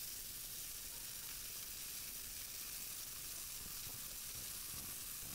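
Marbled catfish fillets frying in sunflower oil on high heat, a steady even sizzle, with the fillets just turned to cook the second side.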